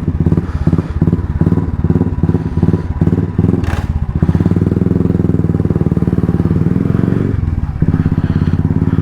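Royal Enfield Classic 350's single-cylinder engine, with an uneven thumping for the first few seconds, then a steady run. The engine note dips briefly near the end and picks up again.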